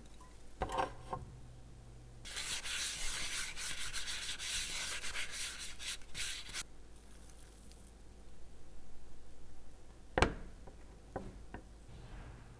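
A folded paper towel wiping oil around the inside of a nonstick frying pan: a rough rubbing that starts about two seconds in and lasts about four seconds. A few small knocks come near the start, and one sharp knock against the pan comes about ten seconds in.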